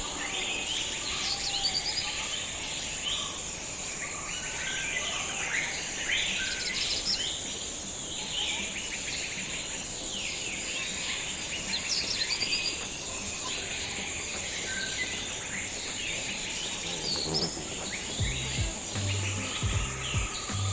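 Many birds chirping and calling over a steady high-pitched insect drone, like crickets or cicadas. Low bass tones come in near the end.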